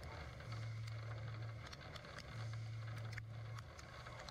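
CNC machining centre drilling cast aluminium with a PCD drill under coolant mist: a low hum in spells of about a second, repeating roughly every two seconds as each hole is drilled, with scattered sharp ticks.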